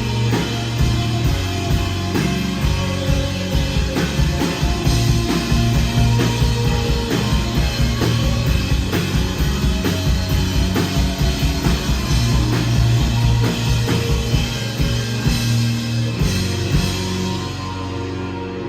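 Live rock band playing loud, with fast, dense drumming under sustained low guitar and bass notes. Near the end the drumming stops and the held chords ring out as the song winds down.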